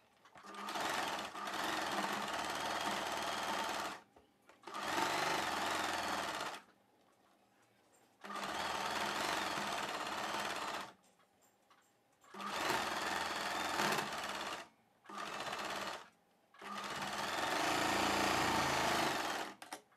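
Small electric domestic sewing machine stitching through layered blouse fabric in six short runs, stopping with silent pauses in between.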